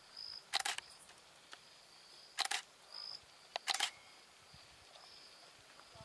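Still-camera shutters firing in short sharp clicks, once about half a second in, again about two and a half seconds in, and a quick pair near four seconds, with two short high beeps between them.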